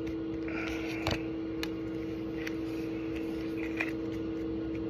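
Faint handling of Pokémon trading cards being flipped through by hand: a soft rustle and a few light clicks, over a steady low hum.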